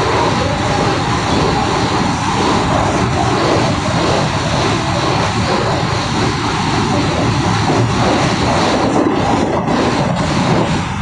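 Mumbai suburban electric local train running at speed, with a steady rushing noise of wheels on rails and air. A few short clacks come near the end.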